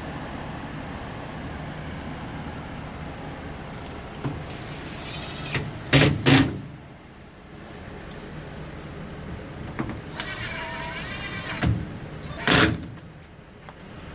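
Sharp ES-F45 washing machine running with a steady motor hum. Short, loud whooshing bursts come twice in quick succession about six seconds in and once more near the end.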